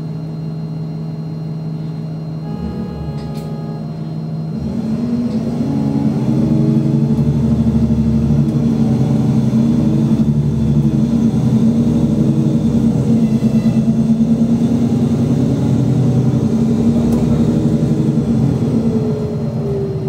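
NefAZ-5299 city bus engine, heard from inside the passenger cabin: a steady hum while the bus stands still, then about four and a half seconds in it grows louder as the bus pulls away. Its pitch rises and drops back several times as it accelerates, easing off near the end.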